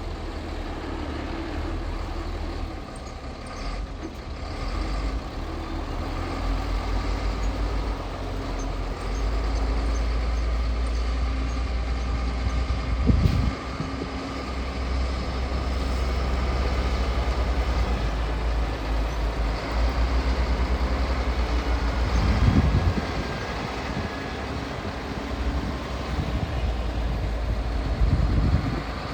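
Caterpillar hydraulic excavator at work: its diesel engine runs steadily with a low rumble, broken by three short, louder low surges, about halfway through, again around three-quarters of the way, and near the end.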